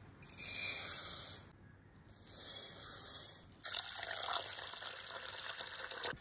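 Water poured in a stream onto basmati rice in a glass bowl, in runs that start and stop abruptly. A louder pour of about a second comes first, then two longer runs.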